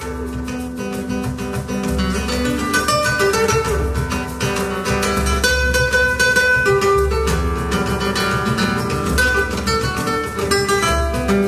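Two nylon-string guitars playing together live in a flamenco style: quick picked and strummed notes over held bass notes, growing a little louder over the first couple of seconds.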